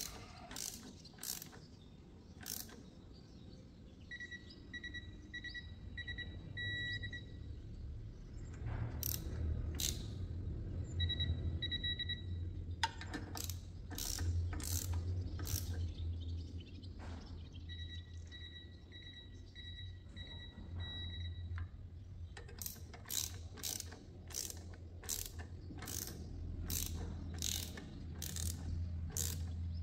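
Ratchet wrench clicking in short runs as the clutch pressure plate bolts on a VW 1300 Beetle flywheel are tightened in a criss-cross order, with a faster run of clicks near the end. A steady low hum runs underneath.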